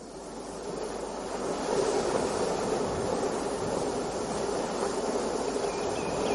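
Ocean surf washing on a shore, fading in from silence and then holding steady: the sound-effect intro of a recorded song.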